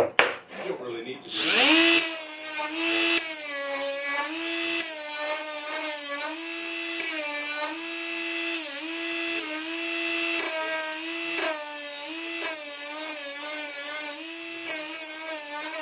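Electric power tool motor spinning up about a second and a half in, then running at a steady high pitch that sags again and again as it bogs under load, with a hiss during each loaded stretch.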